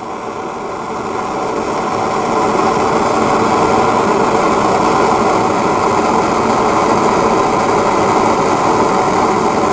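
Propane hand torch burning steadily, getting louder over the first couple of seconds and then holding, as it heats an oil-coated steel part whose oil catches fire.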